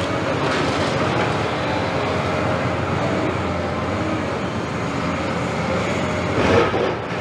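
Caterpillar 329E excavator running steadily, its diesel engine and hydraulics working under load as the demolition grapple pulls at the building. Near the end there is one louder crash of falling debris.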